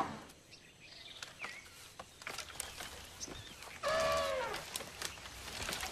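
A young Asian elephant gives one short squealing trumpet call about four seconds in, rising slightly and then falling away. Scattered light clicks and snaps and a few faint bird chirps sound around it.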